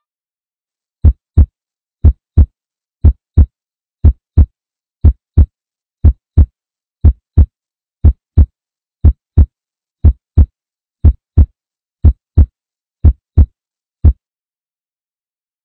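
Heartbeat sound effect: paired low thuds, lub-dub, about once a second, thirteen times, then one last single beat, with dead silence between.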